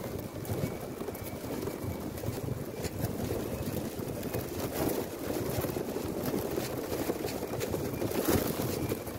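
Wind buffeting the microphone of a phone carried aloft by a kite: a steady low rumble with irregular sharp crackles, strongest about five seconds in and near the end.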